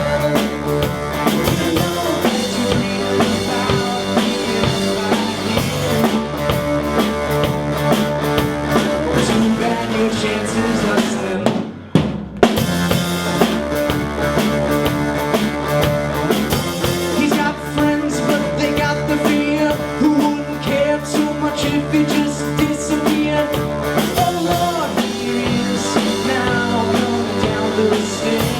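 A rock band playing live, with the drum kit prominent. The music breaks off for about a second near the middle and comes back in on a hard hit.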